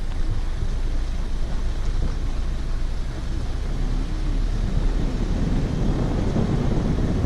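Steady low rumble of a vehicle under way, with wind buffeting the microphone.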